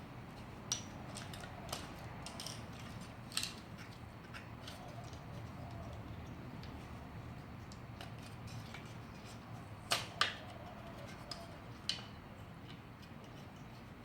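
Scattered small clicks and taps of hard plastic parts being handled as a car floodlight's reflector and lens are fitted back together, with a sharp double click about ten seconds in, over a steady low hum.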